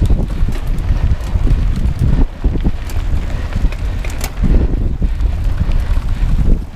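Wind buffeting a handlebar-mounted action camera's microphone on a mountain bike riding a dirt trail, a steady low rumble mixed with tyre and frame noise, with a few sharp clicks or rattles from the bike about three and four seconds in.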